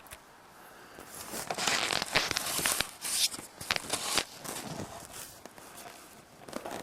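Footsteps crunching, with irregular crackling steps, loudest from about a second in until about four and a half seconds, then fading.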